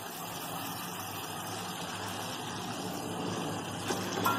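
A steady low mechanical hum with an even hiss over it.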